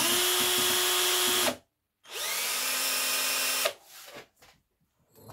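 Cordless drill spinning a bicycle dynamo at speed in two runs. The first stops about a second and a half in; the second winds up in pitch, holds steady and stops a little before the four-second mark. The dynamo is under load, lighting an LED bulb. Faint handling knocks follow.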